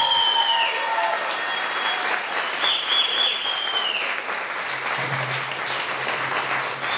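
Audience applauding at the end of a live dance and music performance.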